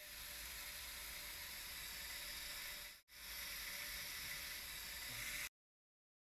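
Surgical power drill running steadily, drilling a screw hole through a drill sleeve and a bone plate into a plastic bone model. It sounds as an even hiss that breaks off briefly about three seconds in, then resumes and stops suddenly.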